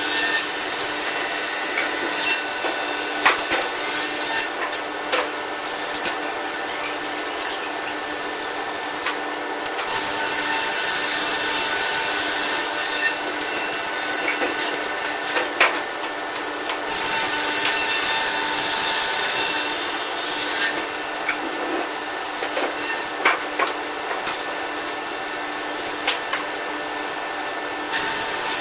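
Woodlandia Scragger-RS2 scragg mill's twin saws cutting through aspen logs, with sharp knocks from logs and cants being handled. The sound is played at five times speed: the cuts swell and fade every several seconds and the whole noise is shifted high, with nothing in the bass.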